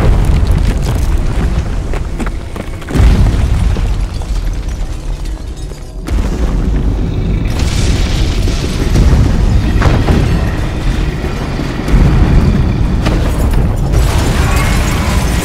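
Deep booming and rumbling of giant-monster destruction sound effects, with sudden heavy booms about three and twelve seconds in, over dramatic film music.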